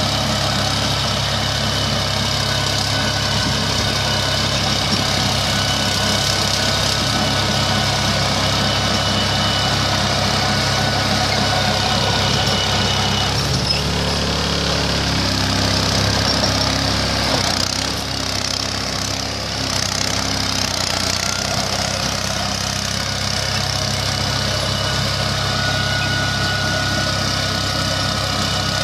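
Captain 25 hp mini tractor's diesel engine running steadily under load while driving a Captain mini rotavator through the soil. The engine note shifts about halfway through and briefly dips in level soon after.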